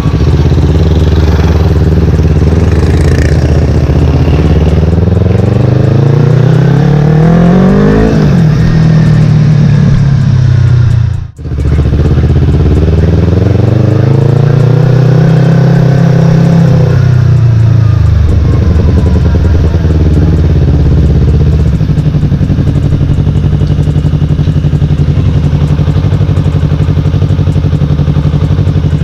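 Yamaha R3's parallel-twin engine revving, climbing in pitch, then rising and falling again, before settling to a steady idle for the last several seconds. The sound cuts out briefly near the middle.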